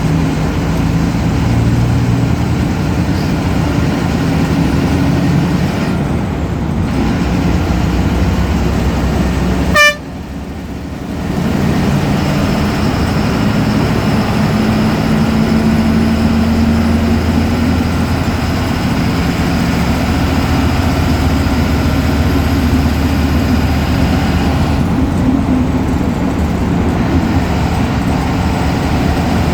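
Ashok Leyland BS4 bus's turbocharged diesel engine running steadily, with a faint high turbo whistle over the engine note in the middle stretch. About a third of the way in there is a sharp click, and the sound briefly dips.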